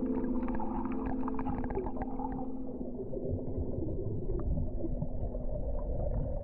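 Underwater sound picked up by a snorkeler's camera: a muffled low rumble of water with scattered sharp clicks. A steady low hum fades out about halfway through.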